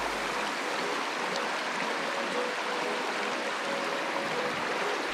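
River current rushing over a shallow run: a steady, even water noise.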